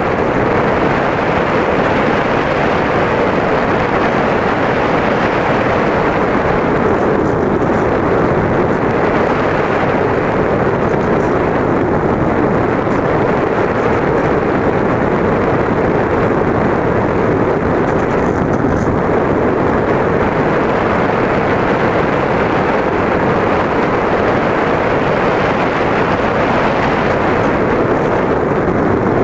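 RC model plane's motor and propeller running steadily through the flight, picked up by the camera on board, with wind rushing over the microphone.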